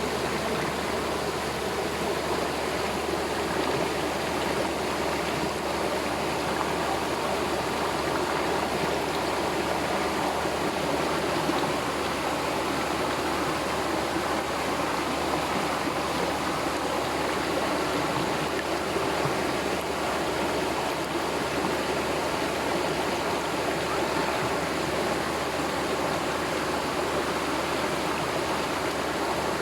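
Waterfall and stream water rushing and splashing in a steady, unbroken wash of noise.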